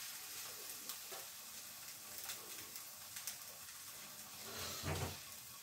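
Pieces of fish frying gently in a skillet over low heat without oil: a faint sizzle with small crackles. A soft bump comes near the end.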